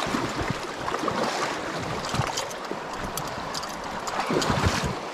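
Fast-flowing trout stream rushing over a riffle close by, with a few brief clicks and knocks on top.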